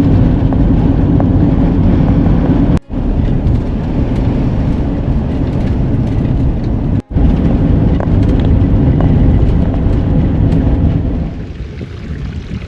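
Vehicle driving on a road: a steady, loud low rumble of engine and road noise. It breaks off for a split second twice, about three and seven seconds in, and grows quieter near the end.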